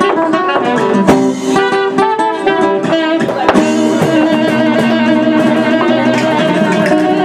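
Live flamenco music: acoustic guitar playing quick strummed and plucked figures, joined about three and a half seconds in by a saxophone holding long notes.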